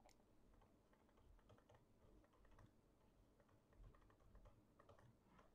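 Near silence, with very faint scattered tapping of a stylus writing on a tablet.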